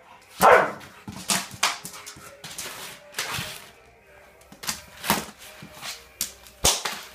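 White Boxer puppy barking in a run of short, sharp barks, the loudest about half a second in, as it attacks a feather duster in a bad mood.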